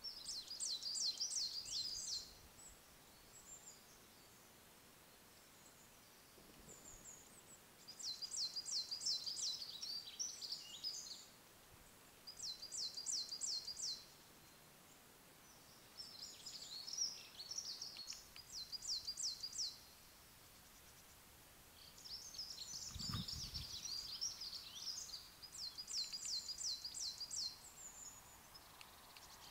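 A small songbird singing, about six phrases of rapid, high, repeated notes, each lasting about two seconds with pauses between. One low thump comes about two-thirds of the way through.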